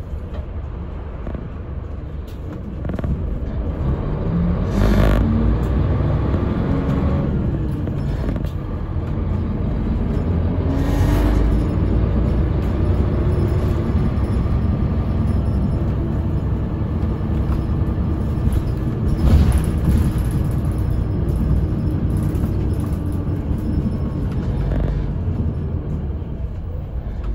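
Interior of a city bus under way: engine and drive noise, with the engine pitch rising as it pulls away a few seconds in and again around ten seconds in. Three short hisses cut in at about 5, 11 and 19 seconds.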